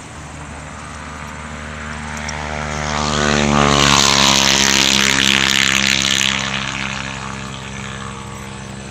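A passing engine drones, swelling to a peak in the middle with a hiss over the loudest part, then fading away.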